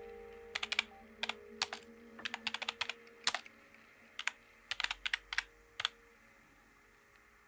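Keyboard typing: a run of irregular keystroke clicks that stops about six seconds in.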